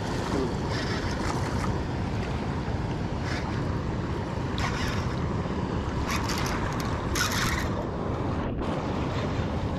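Wind buffeting the microphone over the steady rush of a shallow river, with a few short hisses now and then.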